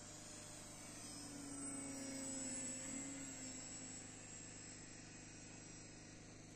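Faint buzz of a radio-controlled EPP foam Hawker Hurricane model's electric motor and propeller in flight, swelling as the plane passes about two to three seconds in, with a slight drop in pitch, then fading back.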